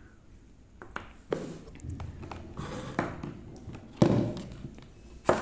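Plastic parts of a steam vaporiser set being handled, giving a series of separate knocks and taps, the loudest about four seconds in.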